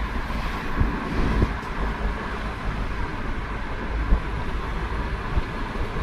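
Steady low rumble and road noise of a moving vehicle, with wind buffeting the microphone.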